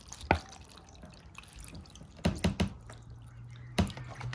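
Water being put on rough opal pieces: a few separate drips and splashes, one about a quarter second in, a quick cluster of three a little after two seconds, and another near the end.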